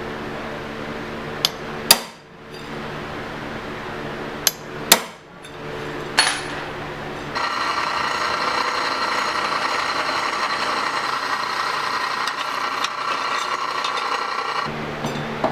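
A steady machine hum with a few sharp metal clanks, then about seven seconds of steady grinding of the steel blade's edge on a grinder, steel on abrasive.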